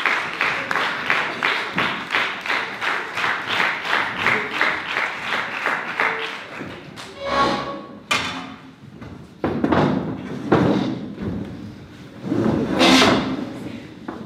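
Audience clapping in unison, about three claps a second, dying away about six seconds in; then a few scattered thumps and a sharp knock.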